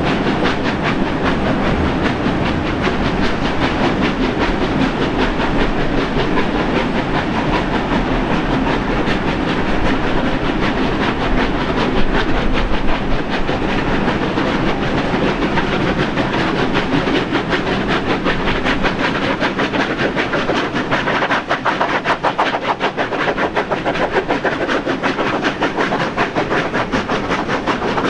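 Double-headed steam locomotives 3016 and 3642 working hard up a steep grade, heard from a carriage window: rapid exhaust beats over the rumble and clatter of the train's wheels on the rails. The beats grow sharper and more pulsing in the last third as the locomotives come into view on the curve.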